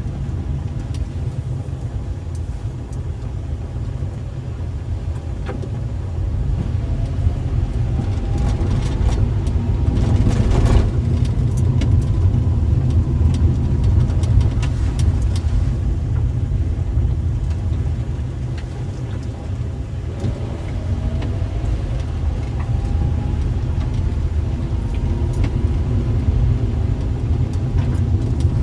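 Car engine and road noise heard from inside the car: a steady low rumble, with the engine note rising as it picks up speed about eight seconds in and again from about twenty seconds in. A brief rattle comes about ten seconds in.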